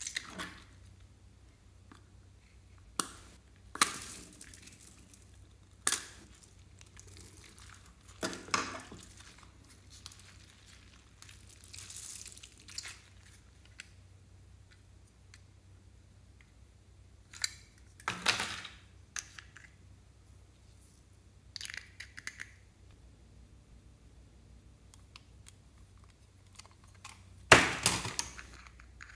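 Scattered clicks, rattles and rustles of small plastic containers and foam beads being handled and added to slime in a glass dish, a few seconds apart. The loudest burst of clicks comes near the end as a small jar of glitter is handled.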